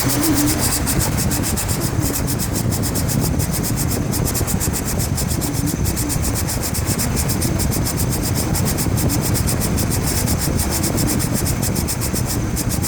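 A 2004 Chevrolet Trailblazer's 4.2 inline-six running, with the AC compressor clutch engaged and making a steady, fast rubbing, scraping noise. The owner takes it for a rough edge in the clutch sticking on the pulley.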